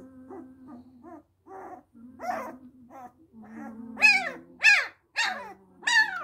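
An 11-day-old Bernese Mountain Dog puppy squealing and whining in a string of short cries that grow louder. It ends in four loud, high cries that fall in pitch, about half a second apart. The puppy is protesting being held head-down during early neurological stimulation.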